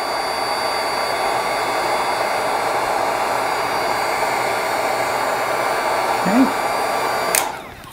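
Heat gun blowing steadily with a faint high motor whine while it shrinks heat-shrink tubing over a treble bleed's wire leads. It is switched off near the end and dies away.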